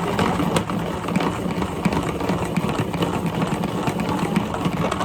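Salad spinner being spun with rinsed lettuce inside, a steady loud whir as the basket throws the water off the leaves.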